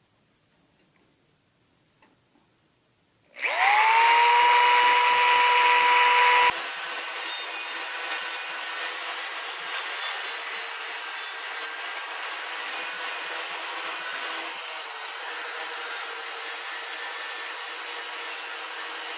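A power tool starts up about three seconds in, its motor whining up to a steady pitch and running loudly for a few seconds. It then goes on at a lower, rougher level, working on material, until it cuts off.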